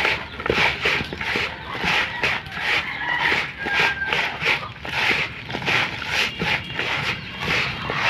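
Hands squeezing and tossing a mix of salt, seasoning and sliced onions and peppers in a plastic basin: a rhythmic wet, gritty scrunching, about two to three squeezes a second.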